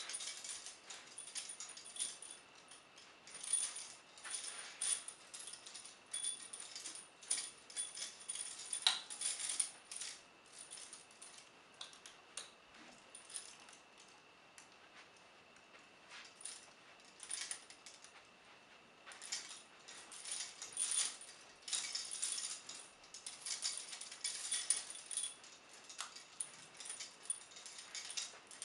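Vintage heavy steel prisoner shackles (handcuffs chained down to leg irons) clinking and jangling in irregular bursts as the wearer shifts and steps, with a quieter spell near the middle.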